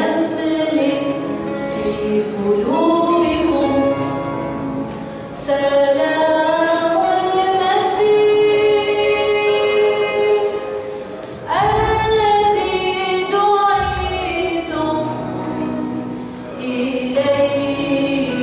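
Syriac liturgical chant sung slowly by a woman's voice, long held notes that slide and ornament from pitch to pitch, with brief breaks for breath about five and eleven seconds in.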